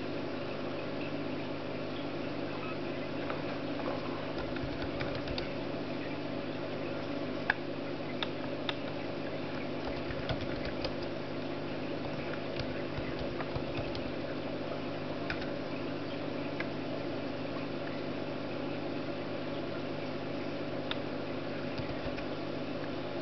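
Scattered, irregular clicks of a netbook's keyboard being typed on, one sharper click about a third of the way in, over a steady hum.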